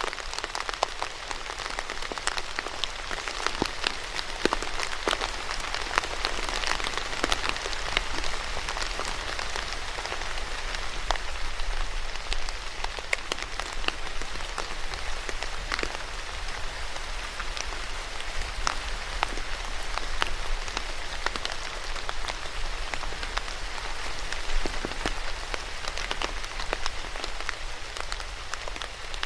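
Steady rain, with many individual drops tapping sharply on a surface.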